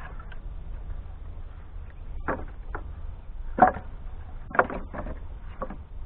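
Split firewood pieces knocking against each other and the wooden pallet as they are set down for stacking: about six sharp wooden clunks from about two seconds in, the loudest a little past halfway, over a steady low rumble.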